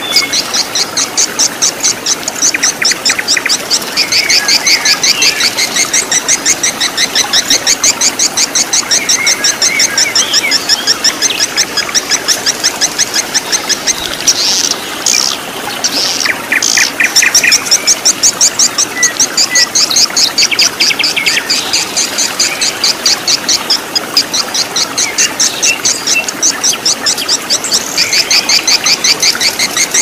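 Birds chirping over the steady rush of a stream running over rocks. A fast, evenly repeated high chirping goes on throughout, with other shorter calls in between.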